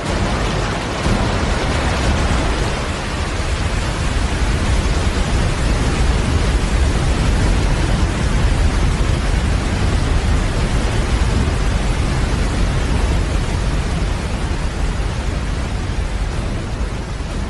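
Large waterfall: a steady, loud rush of falling water with a deep low rumble underneath.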